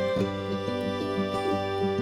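Background music: a gentle instrumental track with plucked strings.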